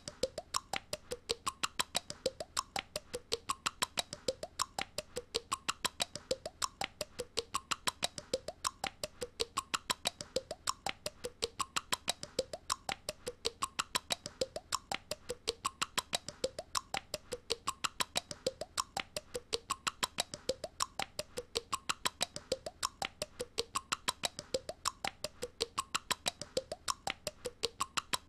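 A young girl's voice making a clicking, popping mouth noise over and over in a fast, even rhythm, about five clicks a second with a short pitched blip every half second or so.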